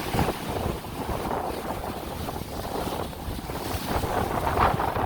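Strong gusty wind buffeting the microphone over rough sea surf.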